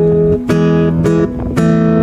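Background music: an acoustic guitar strumming sustained chords, with a new chord struck about half a second in and another about a second and a half in.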